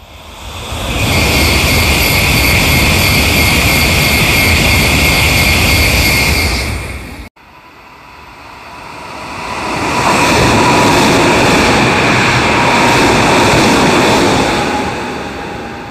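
Train noise swells and is loud, then cuts off abruptly about seven seconds in. A Hankyu train then comes into the platform with wheel and running noise, and a thin whine that falls slowly in pitch as it slows and grows quieter.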